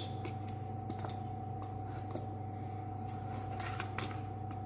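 Pen scratching and tapping on paper on a clipboard, a scatter of faint light clicks, over a steady background hum with a thin high tone.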